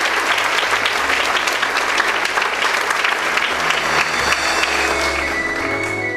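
Theatre audience applauding: dense clapping that thins out near the end, with sustained low notes of the show's accompanying music beneath it.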